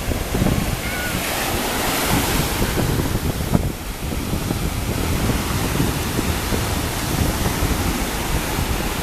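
Ocean surf washing onto the beach, a steady rush that swells about two seconds in, with wind buffeting the microphone.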